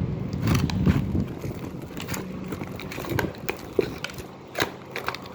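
Sticky foam-bead slime being kneaded by hand, with irregular small clicks, pops and crackles. A low rumble fills the first second.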